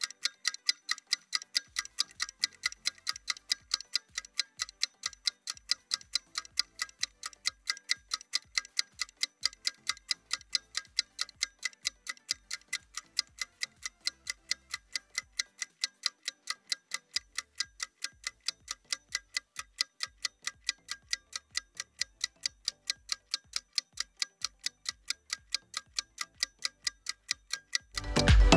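Clock-ticking sound effect marking a rest countdown: rapid, evenly spaced ticks, about three to four a second, with no music behind them.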